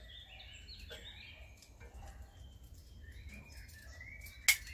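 Garden birds chirping and singing, with a sharp click near the end.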